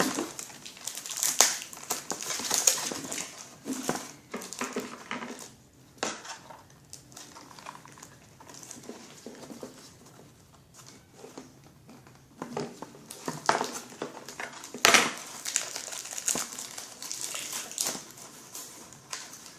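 Packaging being handled and pulled apart: irregular crinkling and crunching with small clicks, quieter for a few seconds in the middle.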